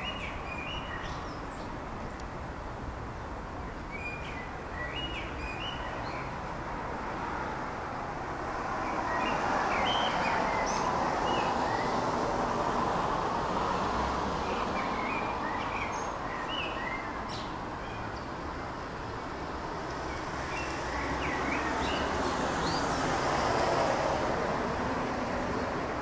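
Distant rumble of a high-flying Boeing 747-400 freighter's four jet engines, a broad rushing noise that swells twice, with small birds chirping over it.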